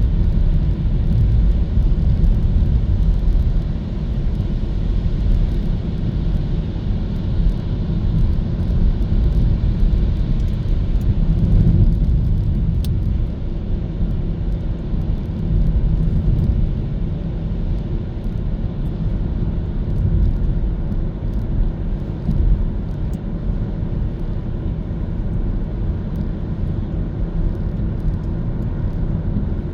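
Hyundai Kona EV driving, with steady road and tyre rumble and no engine sound.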